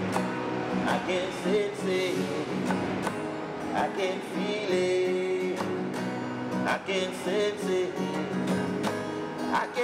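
A man singing a song, holding long notes, over a steadily strummed accompaniment.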